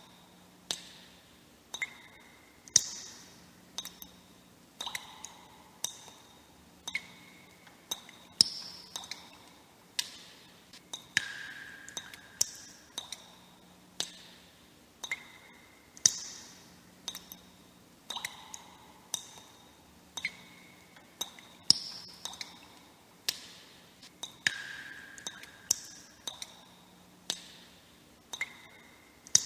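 Water droplets dripping, one or two a second at an uneven pace. Each drop is a sharp plink with a short ringing ping, and the pitch varies from drop to drop, some pings rising.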